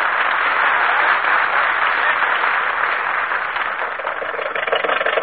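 Studio audience applauding. Near the end, a sound effect of an old car engine begins to sputter as it is started.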